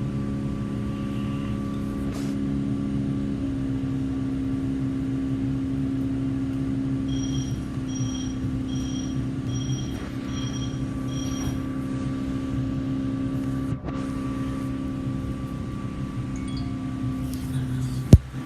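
Interior of a PATCO Speedline rapid-transit car: a steady hum with humming tones that shift in pitch about three seconds in. In the middle comes a run of six short, evenly spaced electronic beeps, and just before the end a sharp click.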